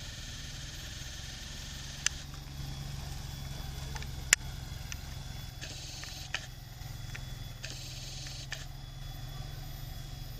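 Diesel locomotive hauling a freight train of tank wagons, its engine a steady low rumble heard from a distance. Two sharp clicks cut in, about two and four seconds in.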